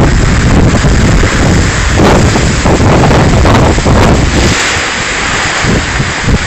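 Strong, gusty tornado wind blasting the microphone with loud, continuous rumbling noise.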